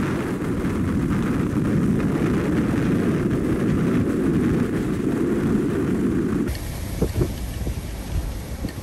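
Nor'easter gale wind pounding the microphone as a loud, dense rush, with coastal surf beneath. About six and a half seconds in it cuts suddenly to a quieter, low rumble of wind and waves.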